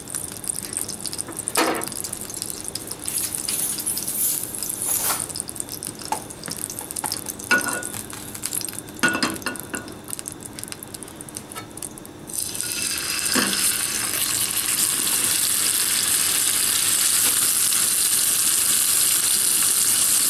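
A few knocks and clinks over a frying pan of heating oil. About twelve seconds in, a rump steak goes into the hot oil and breaks into a loud, steady sizzle.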